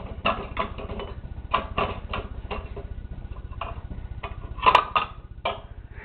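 Plastic dishware in an open dishwasher rack clattering and knocking as a baby grabs and bangs it, in an irregular string of clicks with one loudest knock a little before five seconds in.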